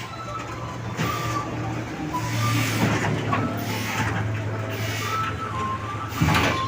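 Engine of an old road roller running steadily with a low, even hum, and a few brief clatters on top.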